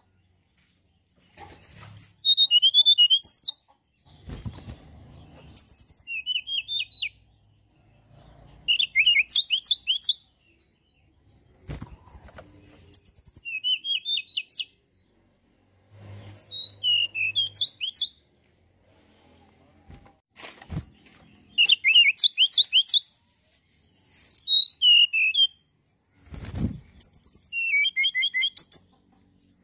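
A tledekan gunung bird singing in repeated short phrases of rapid, high-pitched chirps and trills, with pauses of a second or two between phrases. A few dull thuds fall in the gaps.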